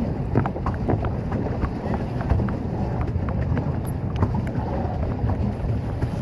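Pedal boat under way on a lake: a steady low rumble of wind on the microphone, with small scattered knocks and splashes from the paddle boat moving through the water.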